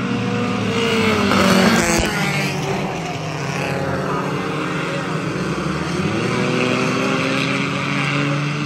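Hobby Stock race cars running at speed round an oval. One car passes close about a second and a half in, the loudest moment, with its engine note falling. From about six seconds in the engine notes rise as the cars accelerate.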